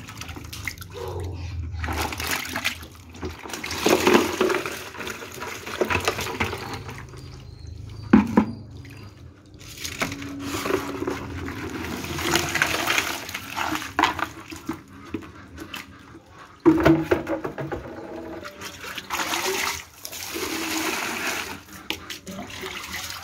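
Water sloshing and splashing in irregular bursts as live fish are handled in a bucket of water and tipped from a plastic basin into a plastic basket, the water pouring off.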